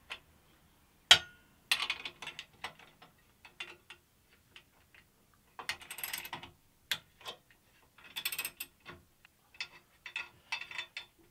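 Ratchet socket wrench clicking in short runs as a hex bolt is tightened, with metal tools clinking. A single sharp metallic knock about a second in is the loudest sound.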